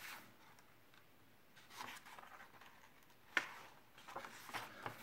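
Faint rustling of matte paper pages being handled and turned in a hardcover mediabook booklet, with a sharper flick of a page about three and a half seconds in.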